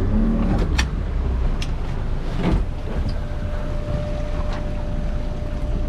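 Fishing boat's engine running steadily under wind and water noise, with a few sharp knocks; a faint steady whine comes in about halfway through.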